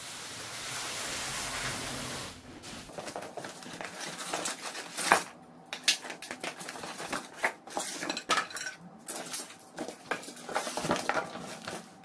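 A cardboard box of hub-motor kit parts being unpacked: a steady rasp for about two seconds as the box is opened, then rustling cardboard and styrofoam with irregular knocks and clinks as parts are lifted out, the sharpest knock about five seconds in.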